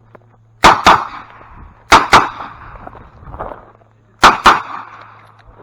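Revolver shots: six loud shots fired in three quick pairs, the two shots of each pair about a quarter second apart, the pairs coming a second and then two seconds apart, each shot ringing out briefly.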